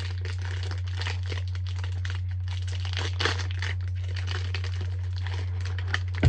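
Plastic snack packaging crinkling continuously as it is handled, with a sharp click near the end. A steady low hum runs underneath.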